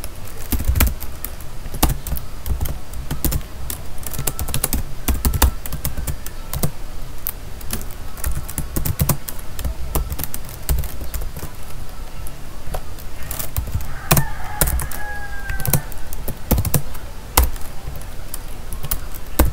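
Typing on a computer keyboard: irregular keystrokes with short pauses between runs of keys.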